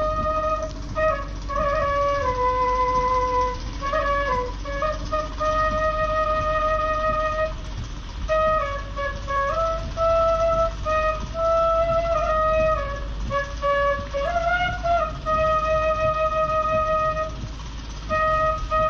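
Slow bansuri (bamboo flute) melody of long held notes with slides between pitches, over a steady low rumble.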